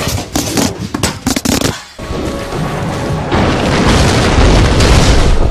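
Explosion sound effect: a quick run of sharp hits for about two seconds, then a loud, deep rumbling blast that swells about a second later and keeps going.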